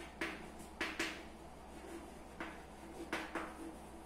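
Chalk writing on a blackboard: a run of short, irregular taps and scrapes as the letters are written.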